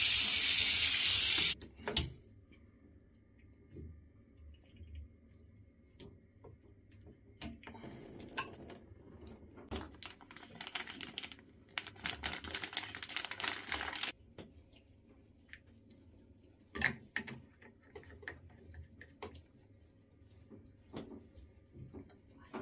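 Mixer tap being repaired: repeated clicks and light knocks of small tap parts being handled. A loud rush of running water comes at the start, and a longer stretch of water running comes around the middle.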